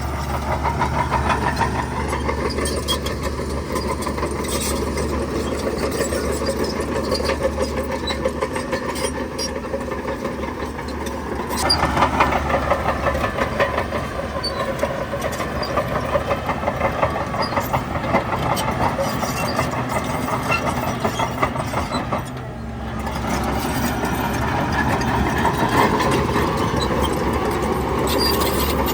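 Heavy diesel engine of earthmoving machinery running under varying load. It grows louder about twelve seconds in, drops off briefly about twenty-two seconds in, then picks up again.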